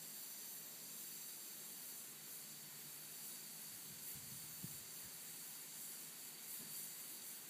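Faint steady background hiss, with one soft low knock a little past halfway.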